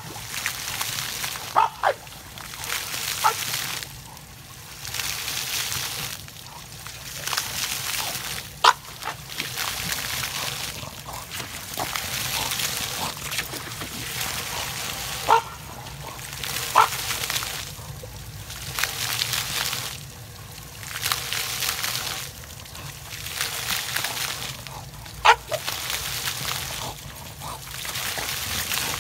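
English bulldog snapping at splash-pad fountain jets, with water spraying and splashing on wet pavement in swells that come and go every second or two. About half a dozen short, sharp barks stand out above the water.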